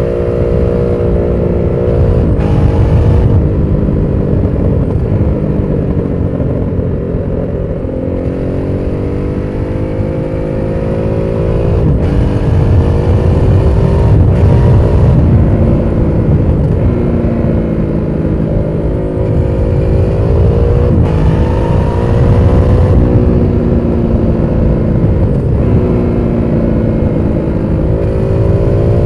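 Aprilia SXV550 supermoto's V-twin engine under way, its pitch climbing steadily and then dropping sharply several times as the bike accelerates and shifts gears.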